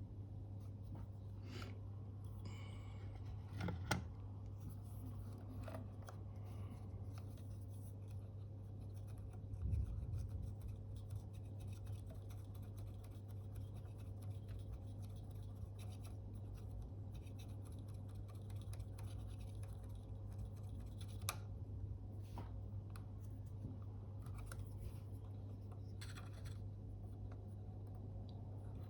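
Faint, intermittent scraping and rubbing with a few small sharp clicks from hand tools, as sticky glue is cleaned off a camera's shutter flex cable. Underneath is a steady low electrical hum.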